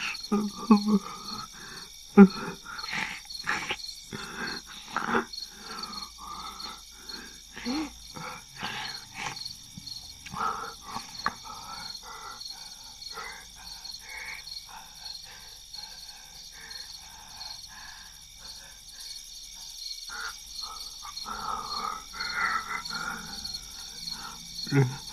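Crickets chirping steadily in a night ambience, with a person's short wordless vocal sounds, like grunts or sobs, coming and going over it.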